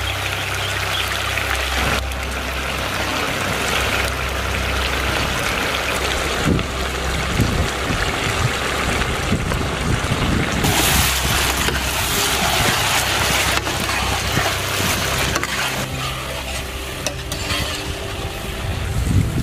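Chicken in sauce sizzling in a wide iron pan over a wood fire: a steady frying hiss that changes abruptly several times, with scattered clatter from a spatula.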